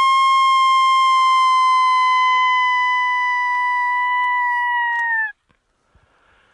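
Wolf howl imitated by a hunter's voice: one long howl held high and steady, sagging slightly and breaking off with a short downward slide about five seconds in.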